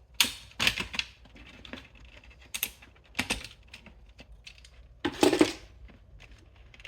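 CPU cooler being unclipped and lifted off a desktop motherboard: a series of sharp plastic and metal clicks and small clattering knocks, with a longer, louder scraping noise about five seconds in.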